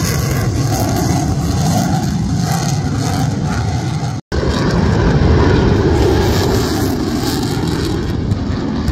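Jet noise from a Sukhoi Su-30MKM's twin AL-31FP turbofans during a flying display: a loud, steady, deep rumble, broken by a split-second dropout about four seconds in.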